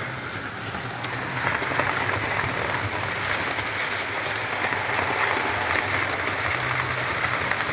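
Model Class 67 diesel locomotive hauling coaches round a model railway layout: the motor's steady low hum under a dense, fast rattle of wheels clicking over the track.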